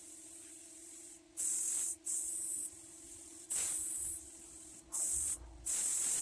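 Air-fed paint spray gun hissing in repeated trigger pulls, about five bursts of half a second to a second each with short gaps between, as paint is sprayed onto a car's body panels. A faint steady hum runs underneath.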